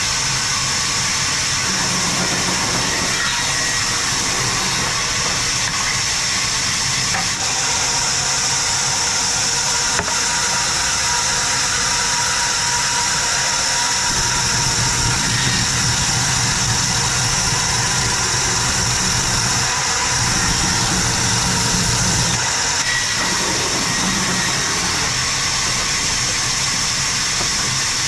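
Large wheeled sawmill band saw running continuously, its blade cutting through logs with a steady high hiss, and a lower drone that swells and eases in stretches of several seconds as the cuts go on.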